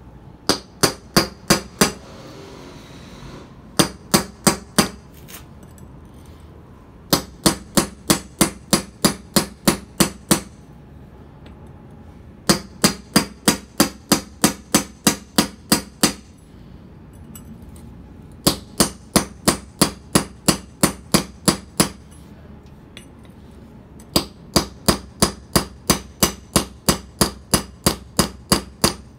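A hammer striking a steel mason's chisel held on a concrete paver, scoring a line to crack the stone. Quick ringing taps about four a second, in runs of several strikes with short pauses between runs.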